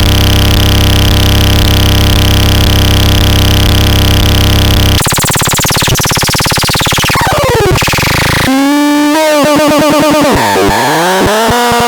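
Harsh electronic synthesizer sounds: a dense buzzing drone of many layered tones that switches abruptly about five seconds in to falling pitch glides, then to warbling, swooping tones from about eight seconds in.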